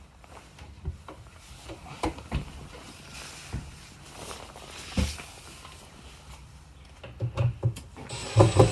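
Light knocks as the cabinet door and hinges are handled, then near the end a power drill with a Phillips bit whirring in short bursts as it turns the concealed-hinge adjustment screws.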